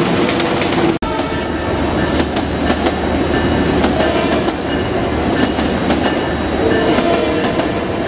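Long Island Rail Road electric commuter train running along the tracks, its wheels clacking over the rails in a quick, uneven run. It begins abruptly about a second in.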